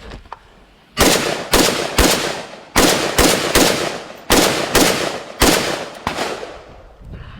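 Ten gunshots fired in quick groups of two and three, starting about a second in, each with a short echoing ring.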